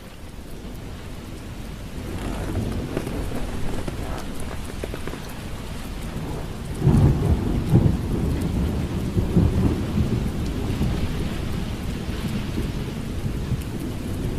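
Steady rain with thunder. The rain builds over the first couple of seconds, and a loud rumble of thunder breaks about seven seconds in and rolls on under the rain.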